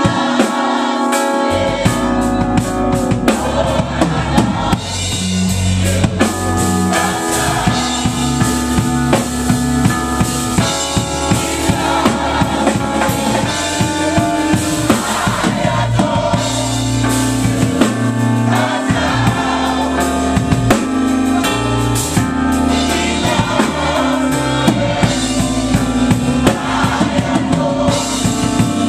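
Live gospel music: a choir singing over a band with drum kit and bass, the drums keeping a steady beat.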